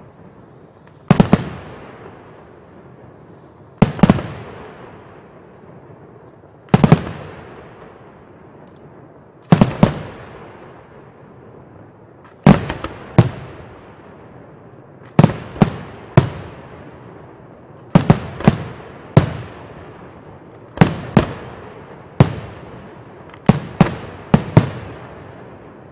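Aerial firework shells bursting in a display: loud sharp reports every two to three seconds, often two or three in quick succession, each trailing off in a long echo.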